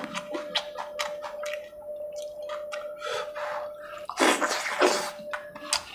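Close-up wet eating sounds: lip-smacking and chewing of saucy chicken curry eaten by hand, with a couple of louder slurps a little after four seconds in.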